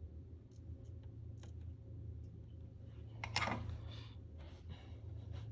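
Faint handling noises of hands working on a fishing rod blank: small clicks and rubbing, with a louder brief scrape or knock about three seconds in, over a steady low hum.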